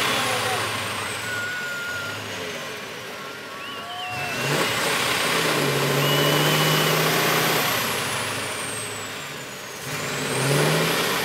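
Big diesel engine of a six-wheel trial truck revving hard in pulses under load in deep mud, with a high whine that rises and falls with the revs. The engine eases off, climbs again about four seconds in, falls back, and picks up once more near the end.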